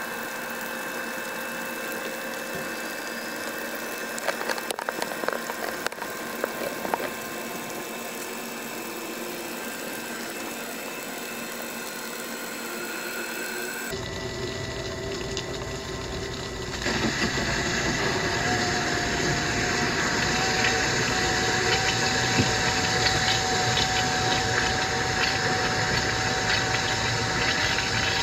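Rule 500 gallon-per-hour non-automatic electric bilge pump running as it pumps water out of a kayak's cockpit, water splashing from the discharge. About two-thirds through, the sound gets louder and a steady whine comes in.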